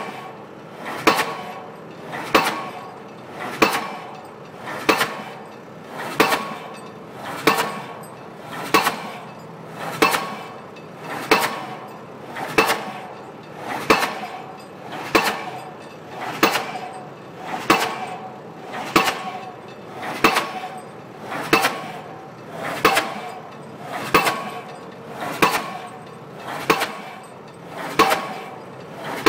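Pile-driving hammer striking a 20-inch steel pipe pile in a steady rhythm, one blow about every second and a quarter. Each blow rings briefly off the steel pipe.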